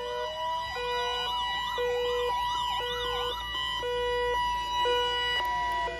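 Several weather radios alerting at once in a NOAA Weather Radio warning alarm test: the steady 1050 Hz warning alarm tone under a beep about once a second and fast siren-like warbling sweeps that stop about halfway through.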